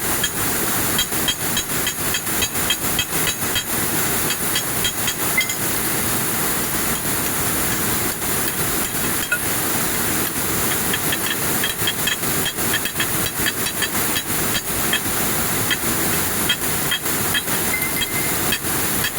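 Air-jet weaving looms running: a steady hiss of compressed air with a rapid, continuous clatter of the looms' beating.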